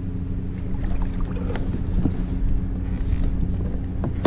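Wind buffeting the microphone and water lapping against a plastic kayak hull, a steady low rumble, with a few light knocks and clicks spread through.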